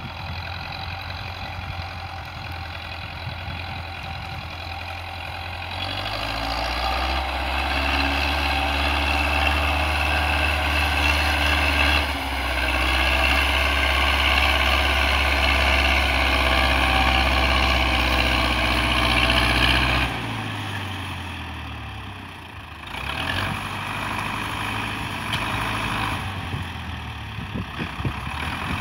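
Zetor 6045 tractor's diesel engine pulling a reversible plough through a field in third gear, running steadily under load and growing louder as the tractor comes closer. About two-thirds of the way through, the engine's pitch and loudness drop suddenly, then it picks up again near the end.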